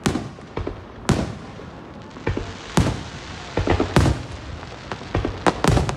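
Aerial fireworks bursting: a string of sharp bangs at uneven gaps of about one to one and a half seconds, with a short patch of crackling a little past the middle.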